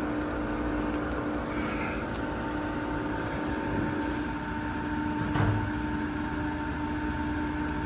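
Steady electrical and fan hum from a Cessna 182T's powered-up Garmin G1000 avionics, with several held tones, and a faint click about five seconds in.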